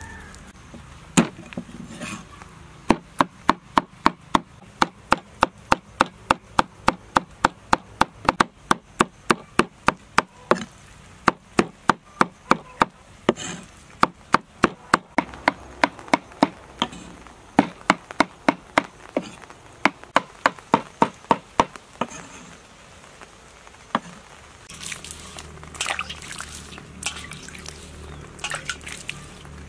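A cleaver chopping on a wooden chopping block, mincing a fish-egg and vegetable mixture in steady strikes of about three a second that stop a little over twenty seconds in. Near the end, water splashes as a gourd is rubbed and washed.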